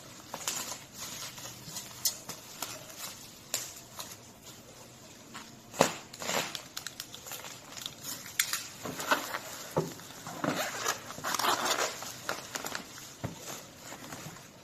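Packaging being handled during an unboxing: scattered taps and light knocks with rustling, and a longer crinkling rustle about ten to twelve seconds in.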